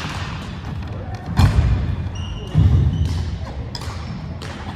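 Badminton rally on a wooden gym floor: sharp racket hits on the shuttlecock and short high squeaks of sneakers on the floor. Two louder low thumps come about a second and a half in and again a second later.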